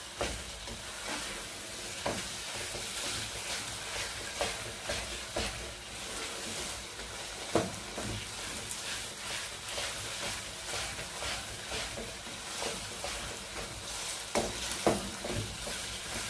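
Milk-soaked semolina frying in oil in a non-stick kadai with a steady sizzle while a spoon stirs and scrapes it, knocking against the pan again and again. This is the semolina being roasted for halwa. The sharpest knocks come about a third of the way in and near the end.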